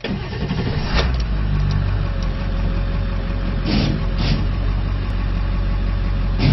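Ford F550's 7.3L Navistar V8 turbo-diesel starting up and settling into a steady idle, the engine note firming up about a second in.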